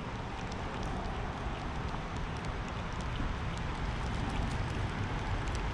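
Wind rumbling and buffeting on the microphone over a steady outdoor hiss, with faint, irregular ticks scattered through it.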